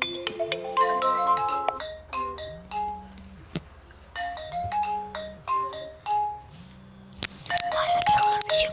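Smartphone alarm tone playing: a melody of short, bright electronic notes that repeats in phrases, with brief lulls.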